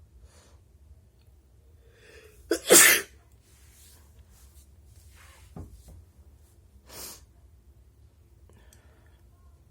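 A person sneezing once, a loud, explosive, wet sneeze about two and a half seconds in, with a quick catch just before the main blast. Two much softer breathy sounds follow a few seconds later.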